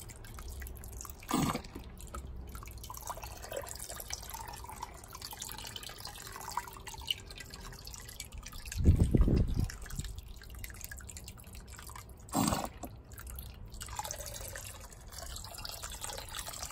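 Soapy water dripping and trickling into a vat of hot melted wax, over a steady low hiss. Two short plops fall in pitch, and a louder low thump comes about halfway through.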